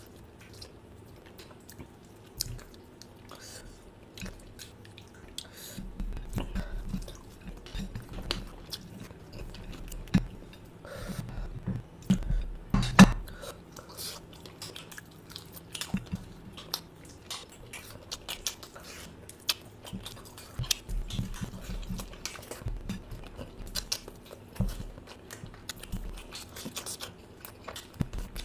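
A person eating close to the microphone: irregular chewing and biting with many short clicks and crunches, and one louder knock about 13 seconds in.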